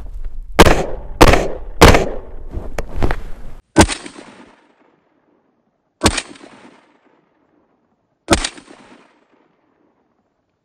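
Six rifle shots from an AR-style rifle fired semi-automatically: three quick shots about half a second apart, then three more spaced about two seconds apart, each followed by a short echo.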